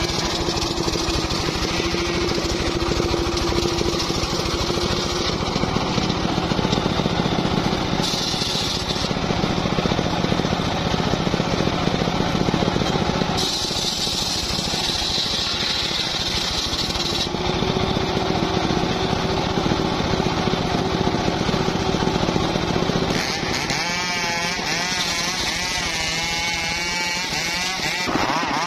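Homemade engine-driven circular saw bench ripping a teak log lengthwise. The engine runs steadily under the whine and rasp of the blade biting through the wood, and a wavering whine comes in during the last few seconds.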